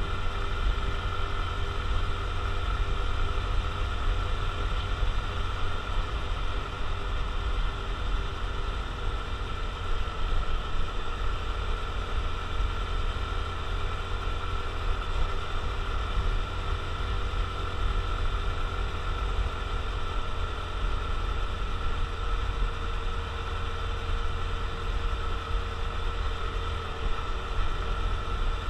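Honda CT125 Trail Hunter Cub's air-cooled single-cylinder four-stroke engine running steadily under way, a low rumble with a steady high whine over it.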